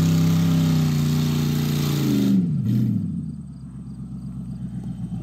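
Dodge Ram 1500 pickup's engine held at steady high revs, then the revs fall away about two seconds in as the throttle is lifted, leaving a low, uneven rumble as the truck rolls on.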